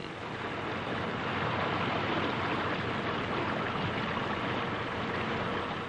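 A steady rushing noise with no clear pitch, swelling slightly and easing off again.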